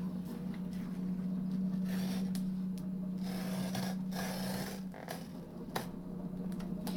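Sliding paper trimmer's blade carriage pushed along its rail, cutting through cardstock with scraping, rubbing strokes and a few clicks; the blade is not very sharp. A steady low hum runs underneath and drops out for a moment about five seconds in.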